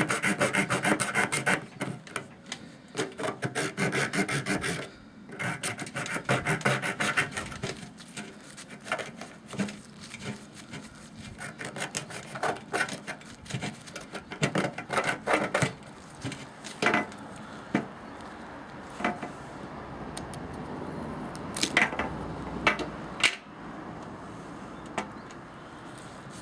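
Hand saw blade of a Leatherman Blast multi-tool sawing through a coconut shell in fast back-and-forth rasping strokes. After about eight seconds the strokes become sparser, with a few sharp clicks later on.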